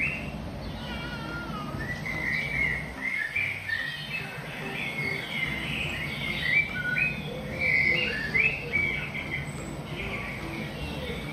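Small birds chirping, a busy run of short, quick notes repeated over and over, over a steady low hum.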